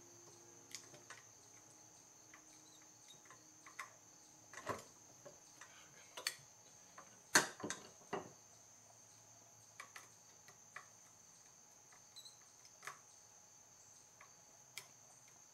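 Scattered light clicks and taps of a small screwdriver and metal parts as an idle mixture screw is backed out of a Mikuni carburetor body, the sharpest click about halfway through. A steady faint high whine runs underneath.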